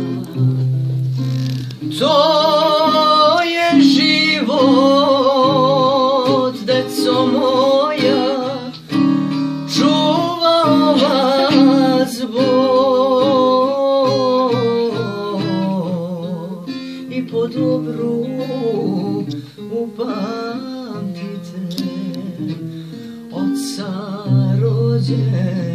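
Acoustic guitar strummed in chords as accompaniment to a voice singing a slow song with a strongly wavering vibrato. The singing comes in about two seconds in, over the guitar.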